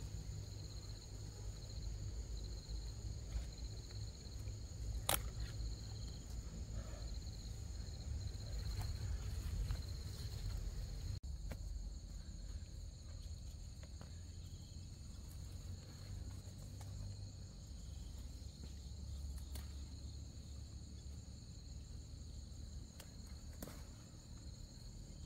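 Insects chirring steadily at two high pitches over a low rumble, with a few soft clicks and rustles of vine stems being picked, one sharp click about five seconds in.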